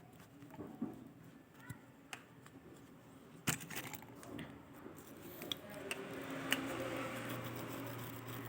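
Light clicks and taps of small repair tools handled on the phone's circuit board, with one sharper click about three and a half seconds in. From about six seconds a steady hiss with a low hum comes up and grows.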